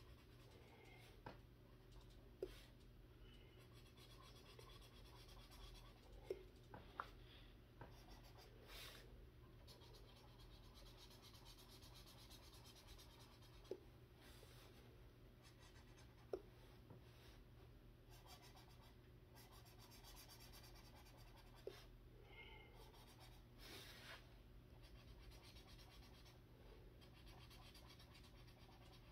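Faint scratching of a felt-tip marker (Crayola Super Tips) coloring on paper, with a handful of light, sharp clicks scattered through it.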